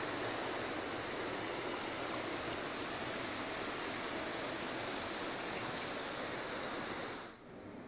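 Shallow mountain stream running over rocks, a steady wash of flowing water. It fades out about seven seconds in.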